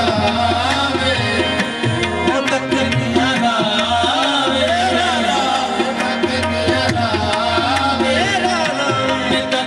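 Live qawwali music: two harmoniums play the melody over a steady tabla rhythm, with a wavering sung line on top.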